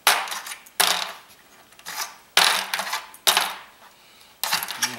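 Small metal SFP fiber-optic transceiver modules being tossed one at a time onto a pile of others on a circuit board: about five sharp metallic clatters, roughly one a second.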